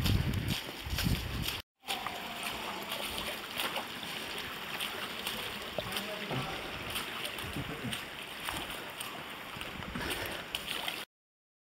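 Steady rush of a shallow creek running over rock, with wind rumbling on the microphone for the first second or so. The sound drops out for a moment near the start and cuts off suddenly near the end.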